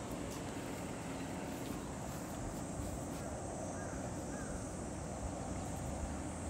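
Outdoor ambience: a steady low rumble with no distinct event, and two faint short chirps about four seconds in.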